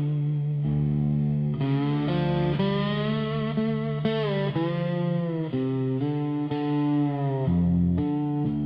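Instrumental intro of a dark country song: guitar with distortion and effects playing slow, held notes that bend in pitch, over low bass notes.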